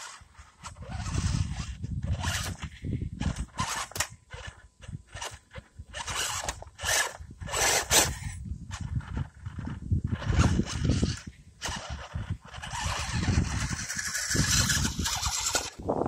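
Scale RC rock crawler (Axial SCX10 II chassis) driving over dirt and small rocks: uneven crunching and rumbling that comes in irregular bursts, with no steady tone.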